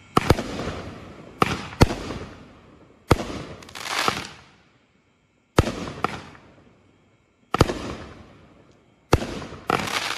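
T-Rex 200-gram consumer fireworks cake firing its shots: a sharp bang every second or two, each trailing off in a fading hiss and crackle. About four seconds in, a longer crackling swell rises and dies away.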